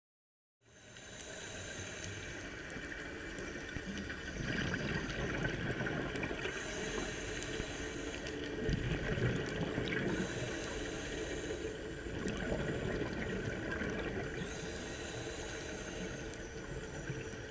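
Underwater sound of a scuba diver breathing through a regulator: hissing inhales alternate with low bubbling exhales every couple of seconds. It sets in abruptly about half a second in.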